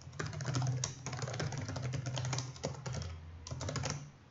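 Typing on a computer keyboard: a fast run of keystrokes, a brief pause about three seconds in, then a few more quick keys.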